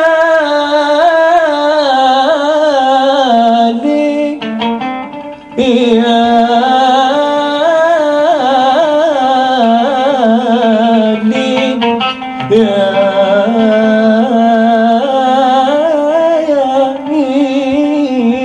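A man singing a long, ornamented Arabic vocal line into a microphone, with held notes that waver in pitch and a short break about four seconds in.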